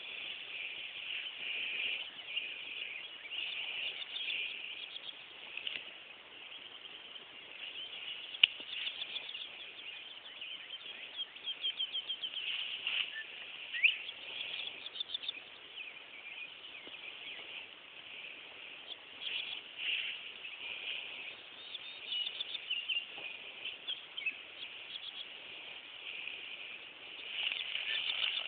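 Field ambience of small creatures chirping, with bursts of rapid trills and one short rising chirp near the middle. A sharp click about eight seconds in is the loudest moment.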